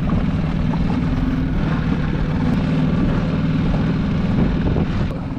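Honda four-stroke outboard running steadily at trolling speed, a constant drone with a low rumble under it.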